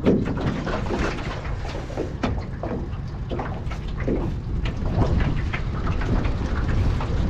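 Wind rumbling on the microphone, with water lapping and slapping irregularly against an aluminum john boat's hull as it is handled in the shallows.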